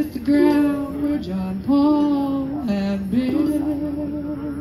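A woman singing live through a PA, holding long notes of about a second each that step up and down in pitch.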